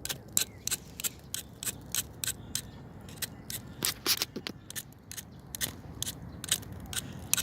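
Small campfire of twigs and wood crackling: irregular sharp pops and snaps, a few each second, some louder than the rest, as the freshly lit, smoking fire burns.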